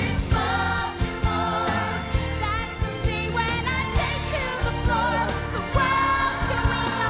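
Upbeat show tune: a woman sings the lead melody over a full band with a steady drum beat.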